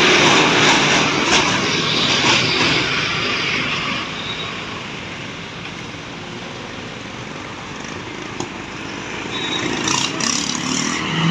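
Road traffic: a vehicle passing close by with a loud rush of tyre and engine noise that fades after about four seconds, then another vehicle approaching near the end.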